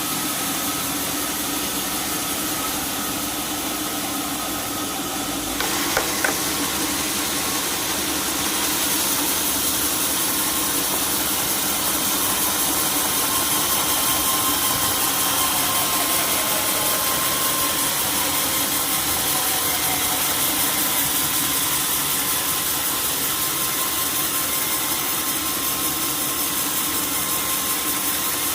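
Sawmill machinery running steadily with a constant drone and a faint whine, with two sharp knocks about six seconds in.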